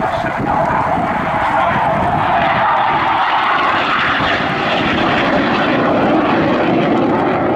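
Loud, steady jet noise from a BAE Hawk 127 jet trainer's Rolls-Royce Turbomeca Adour turbofan as the aircraft flies overhead in a display. A faint tone within the noise slowly falls in pitch over the first few seconds.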